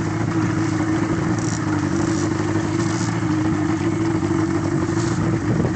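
The boat's motor running with a steady, even hum.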